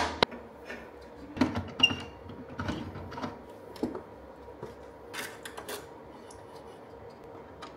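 Scattered light clicks, taps and rustles of hand tools and stiff cables being handled while battery and AC wires are fed into an inverter's terminal compartment and fastened down, with a short knock of a hammer-driven screwdriver just at the start and a brief squeak about two seconds in.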